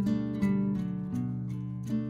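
Background music played on plucked strings, with a new note or chord about every half second.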